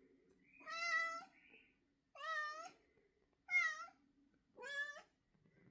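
Domestic calico cat meowing four times, each meow about half a second long with a slightly bending pitch, spaced a second or so apart.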